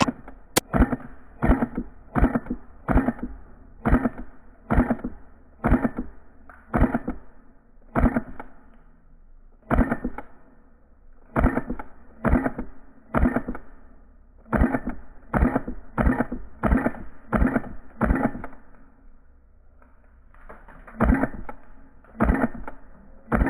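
Footsteps at a steady walking pace, about one to two steps a second, pausing briefly near the end before starting again.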